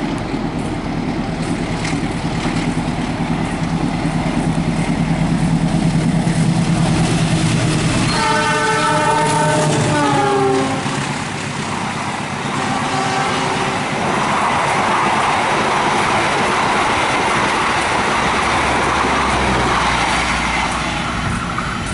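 Passenger train hauled by a diesel-electric locomotive passing: a steady engine drone, then about eight seconds in the horn sounds for two to three seconds, its pitch dropping at the end, followed by the rushing noise of the carriages going by.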